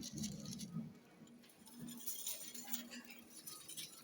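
Supermarket ambience: scattered light clinks and rattles over a steady low hum, with faint background voices.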